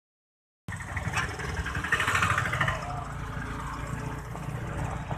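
Road traffic close by: the engines of motorcycles, an auto-rickshaw and cars running, with a steady low rumble, starting just under a second in.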